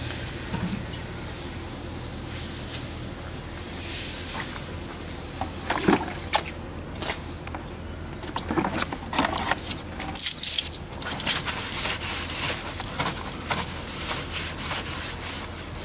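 Garden hose spraying plain cold water onto a car's lower door panels, rinsing off degreaser and road grime: a steady hiss of spray with splashing, growing louder and more broken from about ten seconds in.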